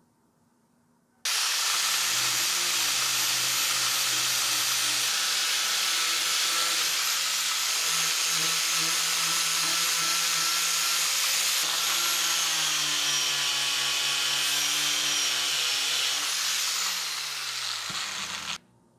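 Angle grinder with a #180 non-woven blend disc running against a rusty steel sickle blade, scouring off the rust. It starts about a second in and runs steadily, then drops in pitch and weakens near the end before cutting off suddenly.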